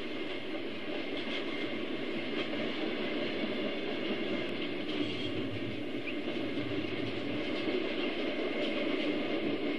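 HO scale model freight cars rolling past on the layout track: a steady rolling rumble of small metal wheels on rail, with light clicks here and there.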